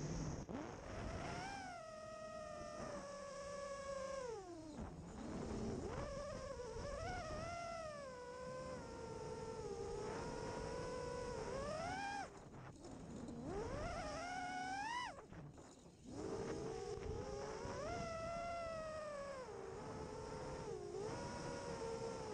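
Brushless motors of a 5-inch FPV quadcopter whining in flight, the pitch sweeping up and down as the throttle is punched and eased. Several times the whine drops away briefly, then climbs sharply again.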